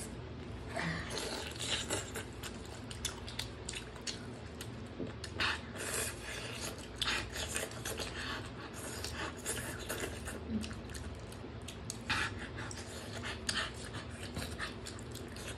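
Close-miked eating of curried chicken by hand: irregular wet smacks and chewing, with fingers squelching in the gravy, over a steady low hum.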